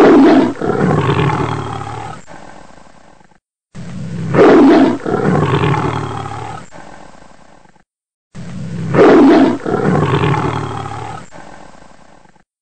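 Big-cat roar, the same recording played three times in a row: each starts loud and fades away over about three and a half seconds, with a short dead-silent gap between repeats.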